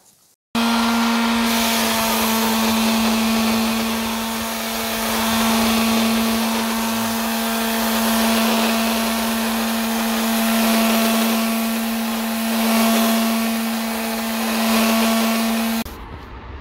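Electric sander running on bare wood with 80-grit sandpaper, stripping leftover varnish: a steady motor hum under a gritty hiss that swells and eases every couple of seconds as it is worked across the piece. It starts abruptly about half a second in and cuts off suddenly about a second before the end.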